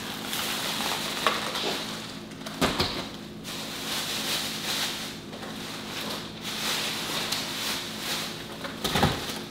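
Paper grocery bag rustling and crinkling as groceries are taken out, with a few knocks as items are handled, one a dull thump near the middle.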